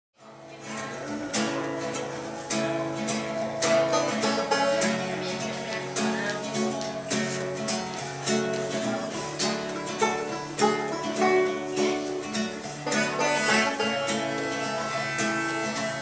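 Live acoustic string-band music: banjo and acoustic guitar picked and strummed in a steady rhythm, with held notes underneath from a melodica.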